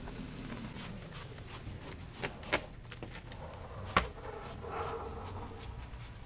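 Vinyl decal being peeled by hand off the side of a Ranger bass boat hull: a few sharp clicks and knocks, the loudest about four seconds in, then a brief drawn-out rasp, over a low steady hum.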